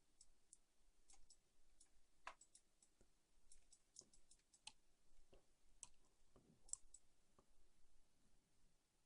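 Faint computer mouse clicks, irregular and scattered, as the user works through CAD software.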